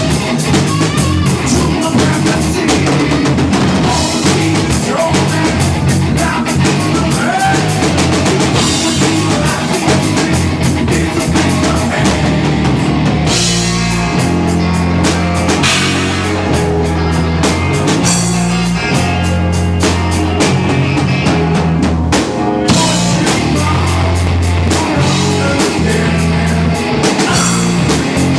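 Live rock band playing loud, with drum kit and guitar over heavy low notes. About halfway through, the part shifts to long held low notes.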